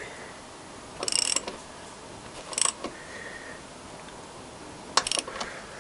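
Socket ratchet clicking in three short bursts as the rear axle nut is tightened with a 19 mm socket.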